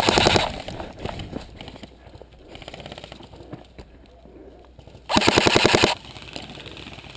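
Airsoft gun firing two short full-auto bursts of rapid clicks, one at the start and one about five seconds in, with a fainter rapid burst around three seconds in.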